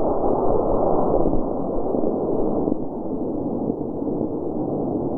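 Model rocket's D16 motor burning after liftoff, a loud, even rushing roar that slowly fades as the rocket climbs away.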